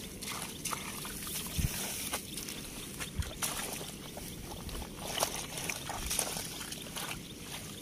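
Hands squelching and sloshing in wet mud and shallow water, with scattered small splashes and clicks.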